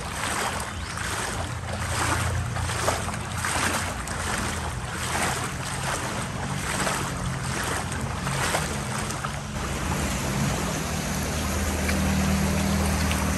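Footsteps wading through floodwater, one splash about every 0.8 seconds. From about ten seconds in, a car drives through the flooded street, its engine humming under the steady wash of water pushed by its tyres.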